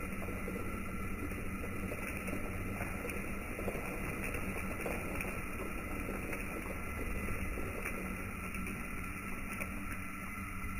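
Propane burner running under a stainless brew kettle of wort at a rolling boil: a steady rush with bubbling.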